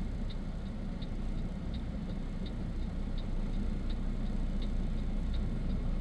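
Truck's left turn signal ticking steadily, about three ticks a second, over the low steady rumble of the truck's engine.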